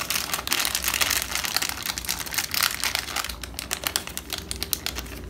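Small clear plastic bag crinkling as hands work it open, a dense run of crackles that stops near the end.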